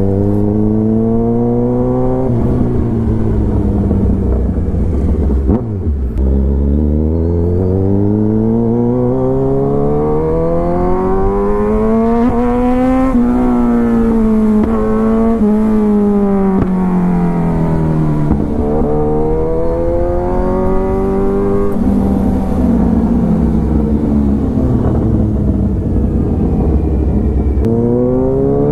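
Kawasaki Ninja 1000's inline-four engine heard from the rider's seat while riding. Its pitch climbs slowly as the bike accelerates, then sinks as the throttle is eased, several times over, with a short break about five and a half seconds in.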